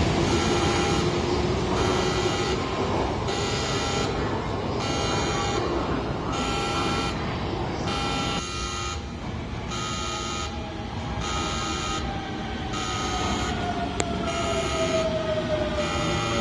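A station departure bell sounding like an emergency alarm, an electronic tone in repeated pulses about one every second and a half. Under it an electric train's motor whine slides down in pitch in the second half as the train slows.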